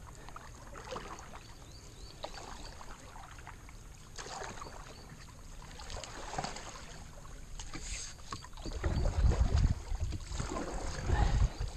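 Wooden canoe being paddled quietly, with soft paddle splashes and light knocks against the hull. Low rumbling on the microphone comes in over the last few seconds.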